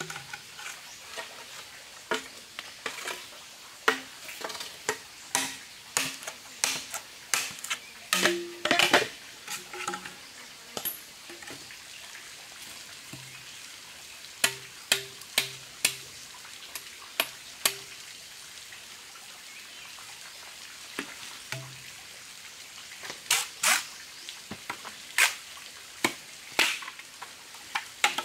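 Bamboo poles knocking together and being struck and split with a machete: a long run of sharp, irregular knocks and cracks, some with a short hollow ring, with a quieter spell a little past the middle.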